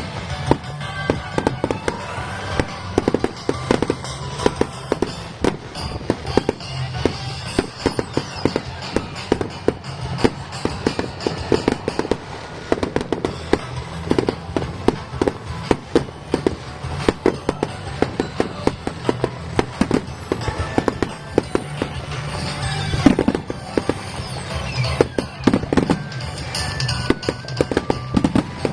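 Fireworks crackling and popping in a rapid, continuous stream of small bangs, with music playing underneath.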